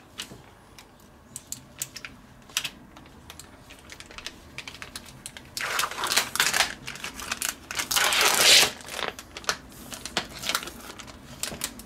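Plastic bacon packaging crinkling as its film lid is peeled back and the tray is handled. Scattered small clicks are followed by two louder stretches of crinkling and tearing, about six and eight seconds in.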